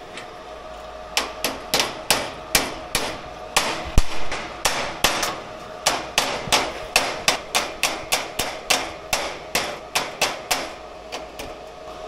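Hammer striking steel on a plasma-cutting table, a quick run of sharp metallic blows about three a second that starts about a second in.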